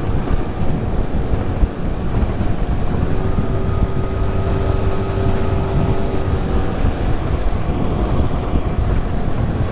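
20 hp Tohatsu four-stroke outboard running steadily at planing speed, with heavy wind buffeting on the microphone and water rushing past the hull. A faint steady whine rises out of the drone about three seconds in and fades near seven seconds.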